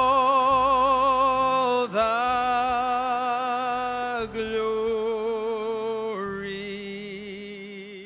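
Slow music of long, held notes with vibrato, stepping down in pitch every two seconds or so and fading out near the end.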